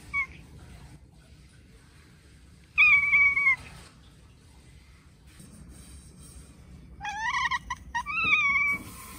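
Domestic cats chirping and chattering at a crow they can see: a brief chirp at the start, a longer call about three seconds in that drops in pitch at its end, then a run of quick, broken chattering calls near the end, the silver tabby's excited chatter at the bird.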